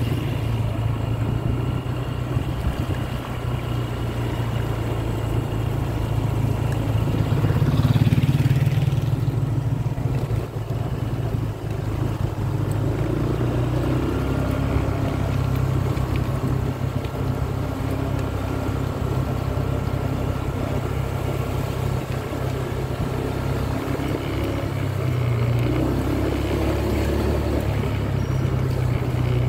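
Small motorcycle engine running steadily at low road speed, with wind and road noise; it swells briefly about eight seconds in.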